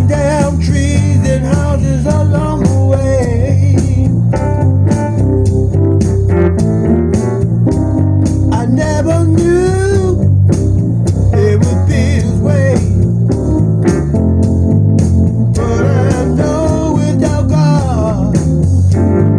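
Music: a guitar-led song with bending melody lines over a steady, repeating bass.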